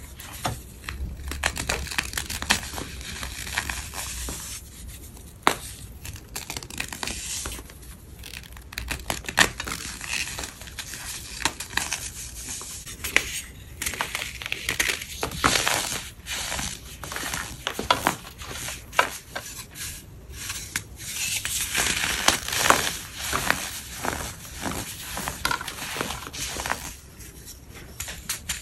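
Crumbly chalk-like blocks being crushed and crumbled, giving a dense run of crisp crunches and crackles that grows busier in two stretches, about halfway through and again near the end.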